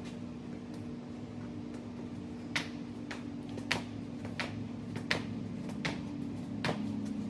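Footfalls of an off-ice warm-up on a rubber-floored rink walkway, a sharp tap about every 0.7 seconds from a couple of seconds in, over a steady low hum.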